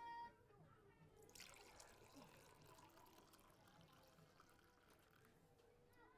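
Faint liquid pouring and sloshing, starting about a second in, over quiet room tone, with a short high whine at the very start.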